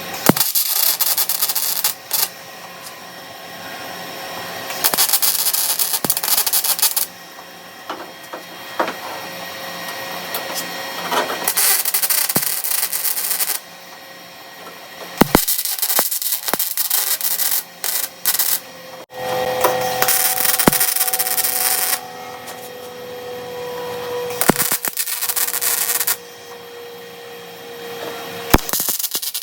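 A welder stitch welding sheet metal on a car quarter panel: about seven short crackling welds of one to three seconds each, with pauses between them.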